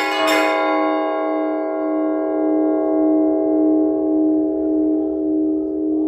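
Orthodox church bells: one more stroke about a third of a second in, then the bells' ring hums on and slowly fades, with a gentle pulsing waver.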